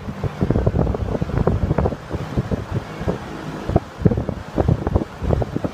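1966 Dominion Model 20676 20-inch steel-bladed box fan running on high speed. Its strong airflow buffets the microphone in irregular gusts.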